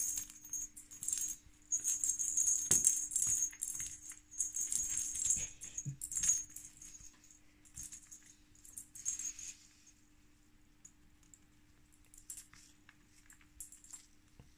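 A toy ball with a bell inside jingling and rattling in bursts as a pineapple conure pushes it around, stopping about ten seconds in and leaving only a few faint clicks.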